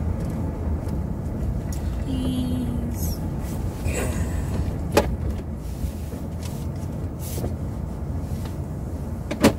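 Steady low rumble of road and engine noise inside a moving car's cabin, with a sharp click about five seconds in and a louder one near the end.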